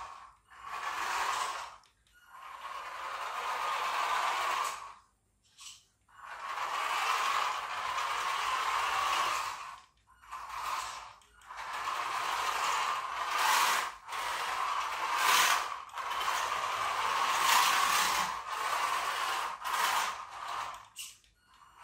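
Small electric motor and gear drive of a toy car converted to radio control, whirring as the car drives. It goes in runs of one to a few seconds with short pauses as the throttle is worked.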